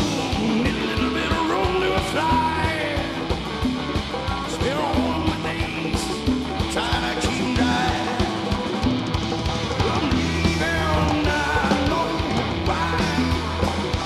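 Live rock band playing an instrumental jam: electric guitar lead lines bending and gliding over bass, drum kit and keyboards.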